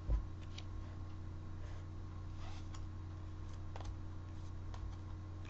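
Faint scattered clicks and light rustling of trading cards and a foil booster pack being handled, over a steady low electrical hum.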